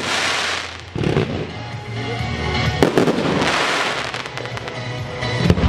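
Fireworks going off over music: the hissing crackle of gold glitter stars bursting, with sharp bangs about three seconds in and again near the end.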